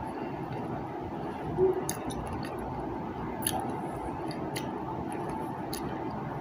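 A person chewing soft fruit, with a few short wet mouth clicks over a steady background hiss.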